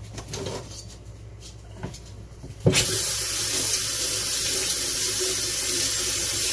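Kitchen faucet turned on about three seconds in, water running steadily and loudly into the sink.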